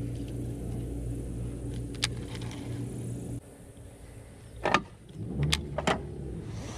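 Baitcasting reel being wound in at a steady pace, a steady mechanical whir that stops abruptly about three and a half seconds in, followed by a few sharp clicks from handling the reel.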